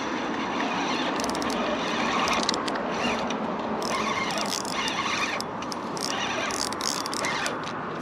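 Steady rushing noise of road traffic, with short crackles of sweatshirt fabric rubbing against the microphone.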